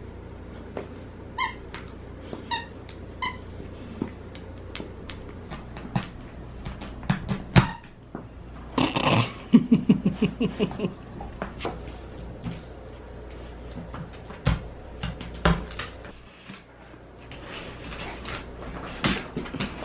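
Large pit bull chewing a plush stuffed chicken toy: three short squeaks from the toy in the first few seconds, then gnawing clicks and knocks of the toy against the floor, with a louder, rapid burst of sound about nine seconds in.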